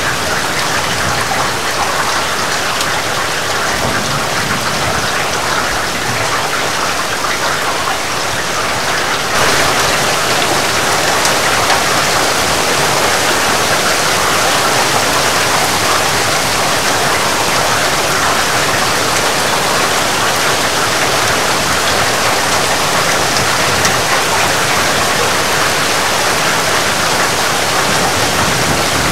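Heavy rain falling steadily, a dense even hiss of many drops. About nine seconds in it grows a little louder and brighter and stays that way.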